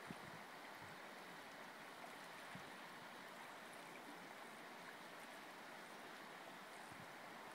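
Faint, steady rush of a flowing river over a shallow gravel bed, with a few soft low thumps.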